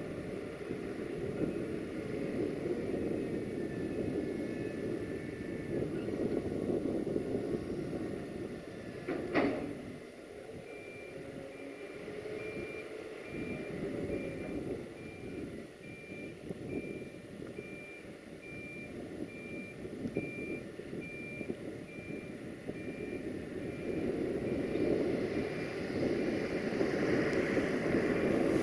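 A 060-DA (LDE2100) diesel locomotive's engine running as it pulls away, loudest in the first ten seconds, with one brief sharp sound about nine seconds in. From about eleven seconds a vehicle's reversing alarm beeps at an even pace almost to the end.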